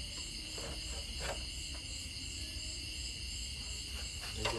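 A chorus of night insects, crickets, chirring steadily in several high pitches with a faint pulsing, and a couple of faint clicks in between.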